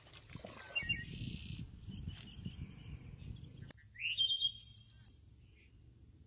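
Birds chirping, with a quick run of high, repeated calls about four seconds in. Under the first half there is a low rumbling noise that cuts off just before the calls.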